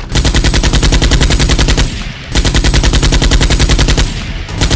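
Rapid automatic gunfire sound effect, of the kind laid over a Nerf blaster fight: loud, evenly spaced shots in three long bursts, with short breaks about two seconds in and again near the end.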